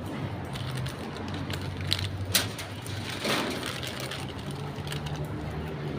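A steady low engine hum, with a few sharp clicks about two seconds in.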